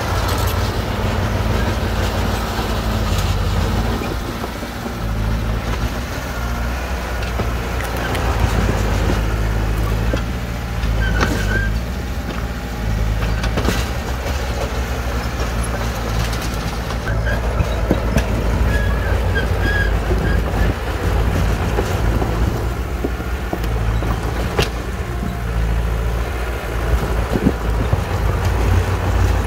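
Shantui DH17C2 bulldozer's diesel engine running steadily under load while pushing rock fill, with scattered knocks and clatter from the tracks and the rock.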